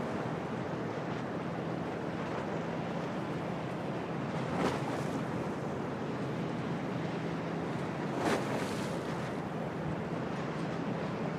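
Stormy wind and choppy waves at a harbour, a steady rushing noise with wind buffeting the microphone and a steady low hum underneath. Two brief louder bursts stand out, about four and a half and eight seconds in.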